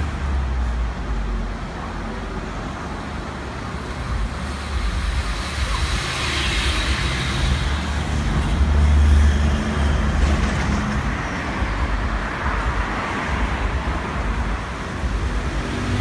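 Road traffic: motor vehicles passing with a low engine rumble and tyre noise, loudest about nine seconds in.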